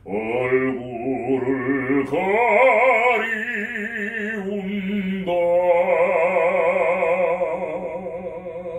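A man singing long, held vowel notes in classical bel canto style, with a wide vibrato. He holds three long notes, changing pitch about two and five seconds in, and stops near the end.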